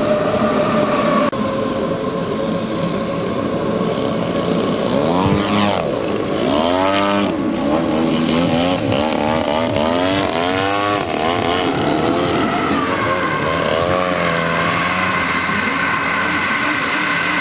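Aerobatic model plane's engine and propeller running, with the pitch swooping rapidly up and down again and again as the throttle is worked to hold the plane in a nose-up hover, then settling at a higher steady pitch near the end.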